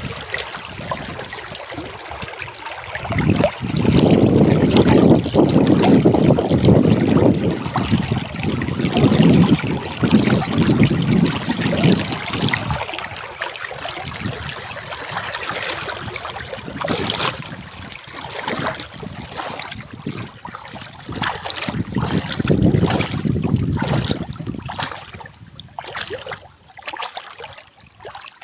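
Water waves washing and splashing, swelling loudly a few seconds in and again later, then breaking into choppier splashes near the end.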